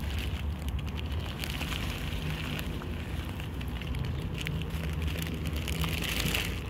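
Dry dog kibble poured from a plastic bag, pattering and rattling onto pavement with the bag crinkling, and dogs crunching the food, in many small crackling clicks.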